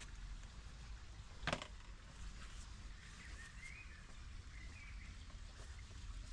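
Quiet garden ambience with a steady low rumble, a single sharp click about one and a half seconds in, and a bird briefly chirping faintly in the background around the middle.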